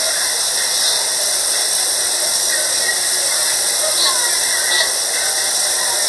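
A steady, even hiss, with faint voices in the background.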